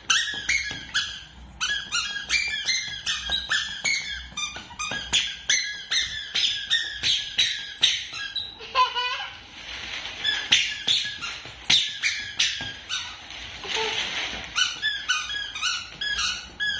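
Child's squeaky shoes squeaking with each step as a toddler walks, about two squeaks a second.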